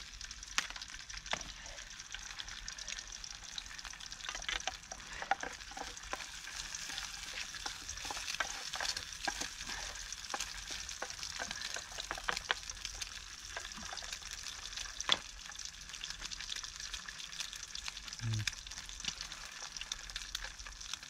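An egg frying in oil in a small frying pan over a wood-burning box stove, sizzling steadily, with scattered clicks and scrapes as a spatula works in the pan.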